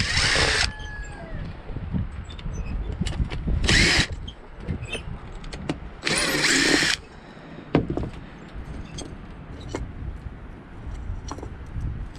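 DeWalt 20V cordless impact driver spinning screws out of teak deck trim in three short whining bursts: one at the start, one about four seconds in and a longer one around six to seven seconds in. Small clicks and handling knocks come between the bursts.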